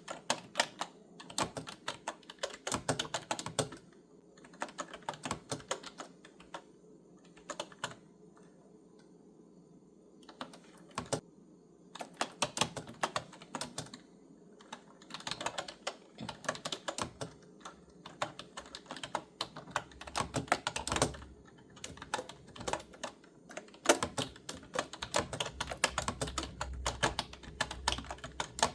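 Clicky computer keyboard being typed on in quick runs of keystrokes, broken by short pauses of a second or two.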